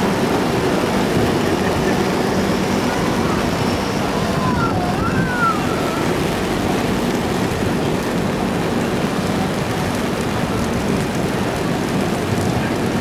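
Heavy monsoon rain falling on an umbrella close overhead, a loud, steady, dense patter, over a slow-moving passenger train rolling past. A few faint, brief squeals come about four to five seconds in.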